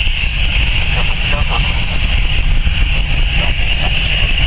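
Jet engines of an easyJet Airbus A320-family airliner whining at taxi power as it turns onto the runway to line up, a steady high whine over a low rumble.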